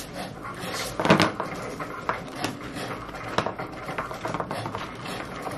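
A stack of paper cash envelopes being handled and shuffled on a desk: irregular rustling with light clicks and taps, the loudest knock about a second in.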